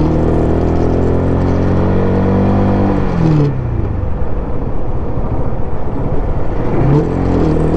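Motorcycle engine running steadily under way, with wind rush on the microphone. About three seconds in the engine note falls as the throttle closes and the bike slows, and the wind fades. The engine note rises again near the end.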